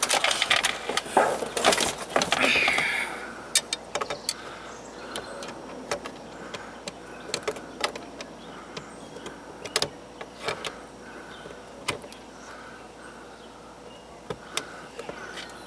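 Cordless drill driving a screw through a bracket into a ribbed metal shed roof, loudest for the first three seconds, followed by scattered clicks and taps.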